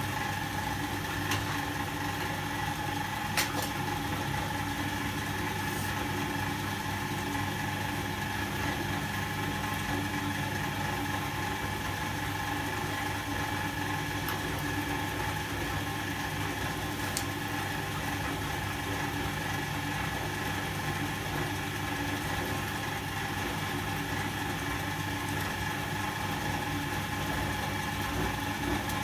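Volga-8R washing machine running in its wash cycle: a steady electric-motor hum with a few light clicks.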